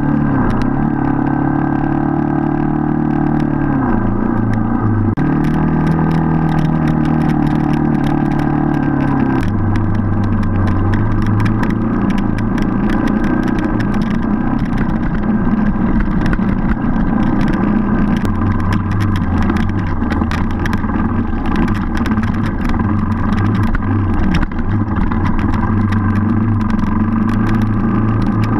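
Enduro motorcycle engine running under way, heard from on board the bike. Its pitch steps down and up a few times with throttle changes, with frequent clicks and knocks from the track.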